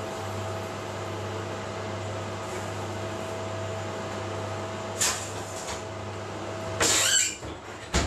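Steady low electrical or mechanical hum with one constant higher tone in it. About five seconds in comes a short rustle, then just before seven seconds a louder rustling burst lasting about half a second, which is the loudest sound, and near the end a single sharp knock.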